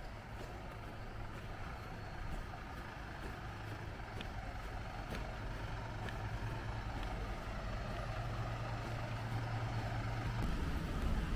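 Steady low hum of a motor vehicle's engine over quiet street ambience, growing gradually louder, with a few faint clicks. The hum breaks off abruptly near the end.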